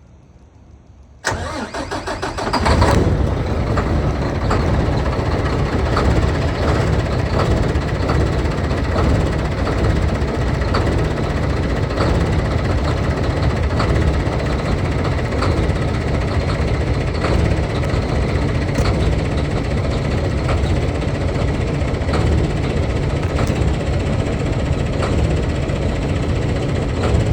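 Kenworth truck's diesel engine cold-started: about a second in, the starter cranks briefly, the engine catches with a surge, then settles into a loud, rough idle.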